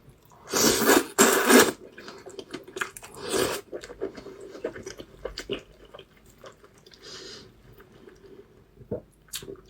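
Close-miked eating: chewing and wet mouth sounds. Three louder bursts come in the first four seconds, then softer, clicky chewing.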